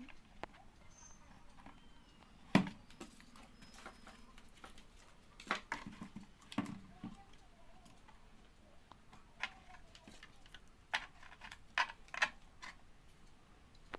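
Scattered small clicks and taps from handling a mixer-grinder motor while grease is rubbed onto it, the sharpest knock about two and a half seconds in.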